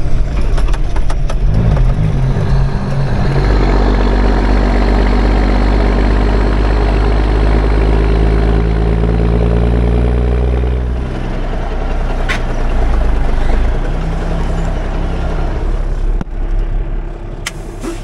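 Grain truck's engine pulling under load, its pitch climbing slowly for several seconds, then dropping away about eleven seconds in before picking up again. A couple of sharp clicks are heard later.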